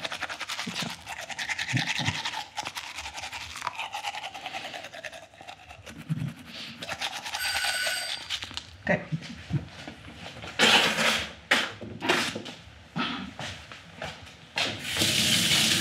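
Manual toothbrush scrubbing a man's teeth: fast, scratchy brushing strokes over the first few seconds. A brief high tone comes about halfway, and several louder bursts of noise fill the second half.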